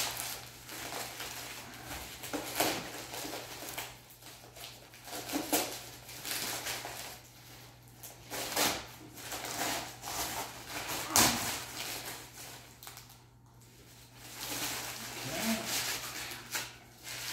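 Newspaper and brown-paper wrapping torn and crumpled by hand in irregular rustling bursts, with one sharper knock partway through.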